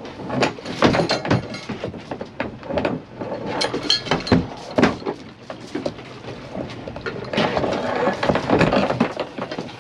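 Irregular knocks and clatter of gear being handled aboard a small fishing boat, with a stretch of rushing noise towards the end.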